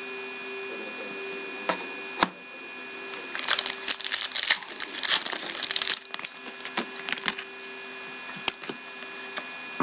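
Trading cards being handled: a couple of sharp taps about two seconds in, then a few seconds of papery sliding and crinkling as the cards of a pack are flipped through, with a faint steady hum underneath.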